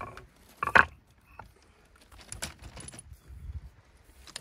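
Stones knocking together on a pebble beach: one sharp clack with a brief ring as a flat stone is set down on another, about a second in. After it come scattered small clicks and crunches of pebbles shifting underfoot.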